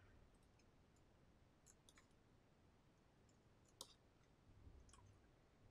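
Near silence: room tone with a handful of faint, scattered clicks, the clearest a little before four seconds in.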